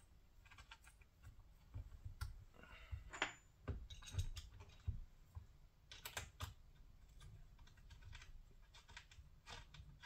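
Faint, irregular light clicks and taps of metal parts being handled as a throttle body is fitted and bolted onto an intake manifold, with a few sharper clicks scattered through.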